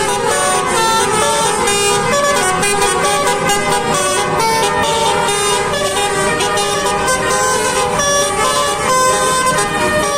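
Indonesian bus 'telolet' horn: a multi-tone musical air horn playing a quick tune, several notes sounding together and changing pitch every fraction of a second without a break.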